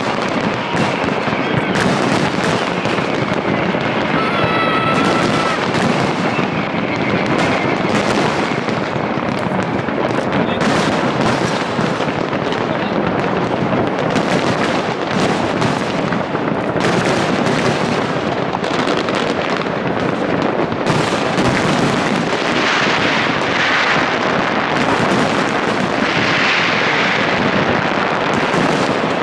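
Large fireworks display: a dense, continuous barrage of overlapping bangs and crackles with no pause, with a brief whistle about five seconds in.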